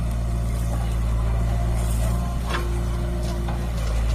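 Diesel engines of a Mahindra 585 DI tractor and a JCB backhoe loader running steadily, with a few clanks and a short steady whine about halfway through as the backhoe swings its loaded bucket.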